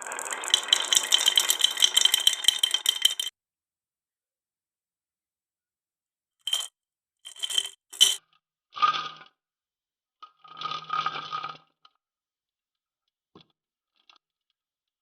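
Marbles clattering through a wooden marble run in a dense rattle of clicks for about three seconds. After a pause come three sharp clinks and two short rolling rattles.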